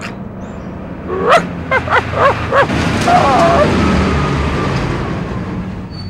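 A dog barking four times in quick succession, then giving a short wavering whine, over the steady running noise of a garbage truck.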